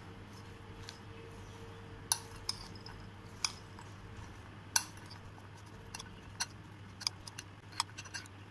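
Steel spoon stirring a chopped sprout salad in a glass bowl: scattered, irregular clinks of the spoon against the glass, the sharpest about two, three and a half and five seconds in.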